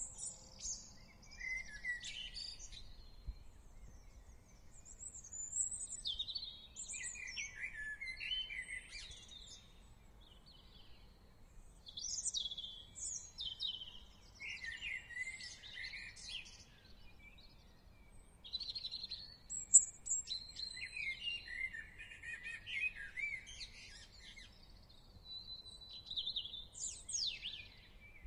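Several songbirds singing and chirping over one another in bouts of high trills and chirps, with one brief, louder high note about two-thirds of the way through. A faint low background noise runs beneath.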